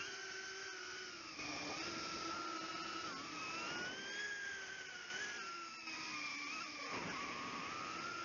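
Brushless motors of a small 135 mm FPV quadcopter whining, the pitch wavering up and down with throttle, with a brief dip near the end.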